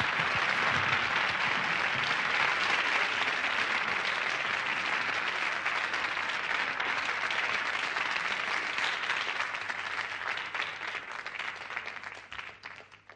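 Studio audience applauding, a dense steady clapping that fades away over the last few seconds.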